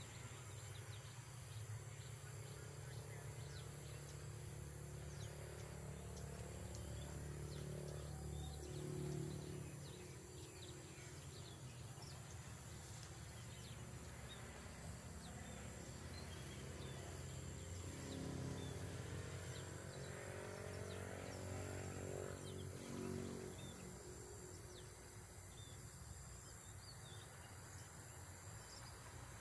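Faint outdoor ambience of insects and scattered bird chirps, over a low droning hum that swells twice, about a third of the way in and again two-thirds in.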